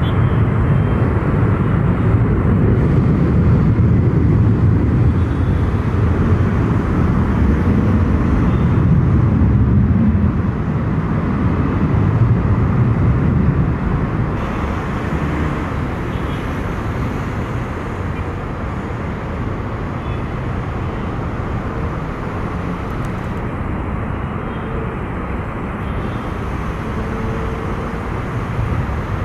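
Jet aircraft engines rumbling loudly, deepest and strongest for the first dozen seconds or so, then easing off somewhat as the aircraft moves away.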